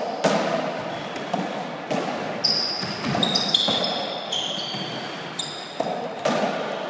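Squash rally in an echoing court: a string of sharp smacks as the ball is struck by racquets and rebounds off the walls, with short high squeaks of sneakers on the wooden floor.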